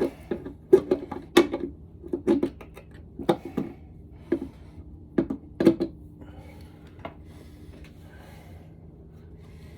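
Irregular clanks and knocks of hard engine parts being handled and worked loose under the hood, about a dozen in the first six seconds, then only a faint steady hum.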